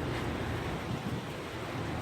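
Steady rain falling, with wind rumbling on the microphone.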